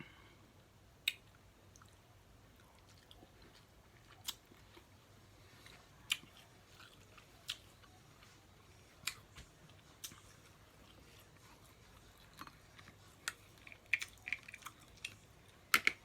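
Close-up eating of snow crab legs: chewing with scattered sharp clicks and cracks, a second or more apart, coming thicker near the end.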